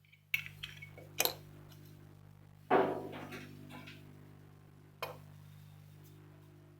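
Four sharp light clinks of small metal tools, like tweezers set down or tapped, the third the loudest with a short ring, over a low steady hum.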